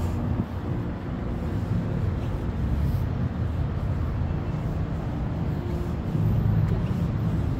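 Steady low rumble of city street traffic, cars driving past, growing louder about six seconds in as a vehicle passes close.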